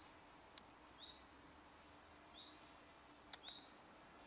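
Faint outdoor background with a bird giving a short rising chirp three times, about a second apart, and a couple of faint clicks.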